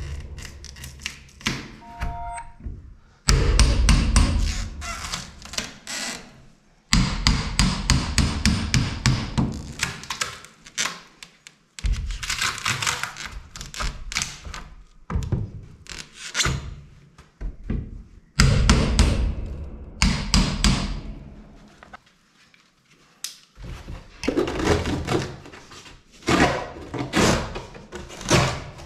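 Bouts of rapid thuds and knocks, with short lulls between, as a crowbar prises and bangs a cut-out section of the container's fibreglass wall skin loose from the foam insulation behind it.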